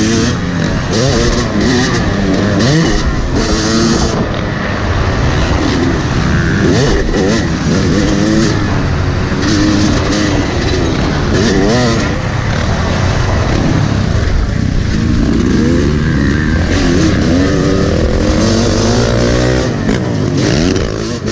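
Yamaha dirt bike engine under a riding rider, revving up and dropping back over and over as it shifts and throttles around a motocross track.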